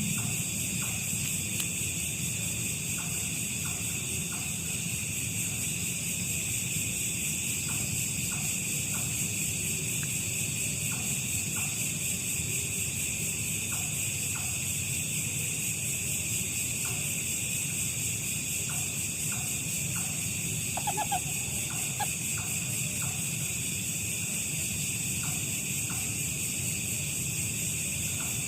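Steady, unbroken chorus of insects, with scattered short chirps and a brief squeak about two-thirds of the way through.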